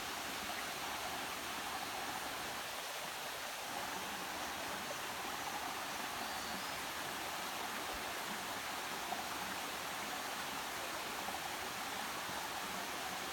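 A rocky forest stream running, a steady, even rush of water.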